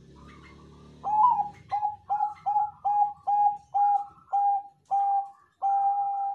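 Zebra dove of the Bangkok song strain (perkutut Bangkok) singing. About a second in it starts a run of about ten short, clear coos at one steady pitch, roughly two a second, each swooping up at its start, and ends on one longer held note.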